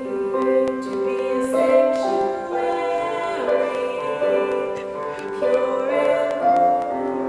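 Background music: a slow melody of held notes over steady chords, with a light regular tick.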